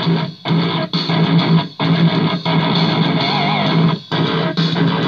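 Guitar-led rock music played through the working channel of an old Cygnus PA 400 power amplifier into a speaker as a test signal, with a steady bass note and several short breaks where the sound stops for a moment.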